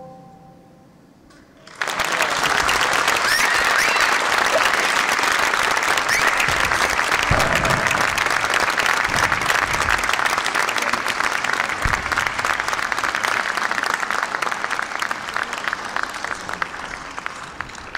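The oud's last plucked note fades out. About two seconds in, a theatre audience breaks into loud, sustained applause that eases off slightly near the end.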